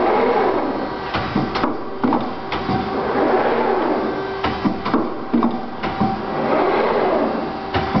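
Plastic tank clinching (crimping) machine running: a steady mechanical hum and whir that swells and fades every few seconds, broken by frequent sharp clacks and knocks from its moving parts.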